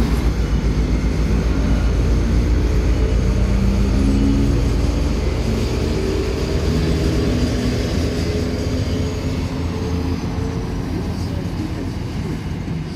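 Diesel locomotive 1428 passing slowly with its engine running in a deep, throbbing beat, hauling empty container flat wagons that clatter over the rails. The engine sound fades as the locomotive moves away.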